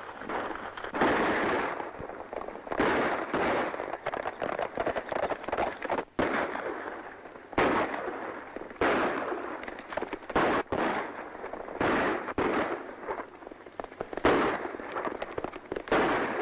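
Gunfire in a western shootout: about a dozen pistol or rifle shots at irregular intervals, each ringing out with an echoing tail.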